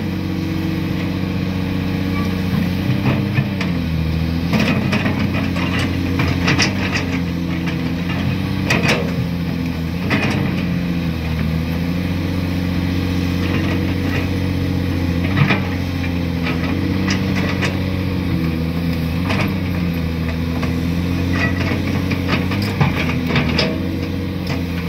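Caterpillar 336D hydraulic excavator's diesel engine running steadily under working load, its pitch dipping briefly several times as the hydraulics take up load. Scattered short knocks and scrapes of the bucket working in rock sound over it.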